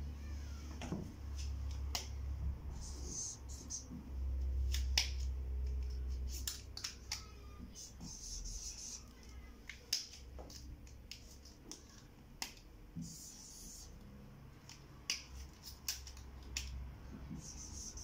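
Dry-erase marker writing on a whiteboard in short hissy strokes, with scattered sharp clicks as a handful of markers is handled and knocked together. A steady low hum runs underneath.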